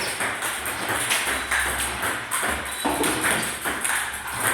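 Table tennis balls fed by a ball-launching machine and hit back, making sharp taps on the table and paddle a couple of times a second.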